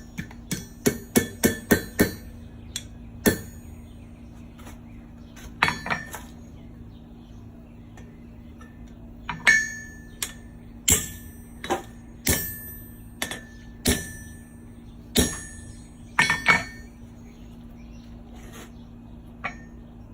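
Hammer striking steel with a ringing tone, setting the pins and tenons of a forged steel bookend assembly: a quick run of light taps, then single blows about a second apart.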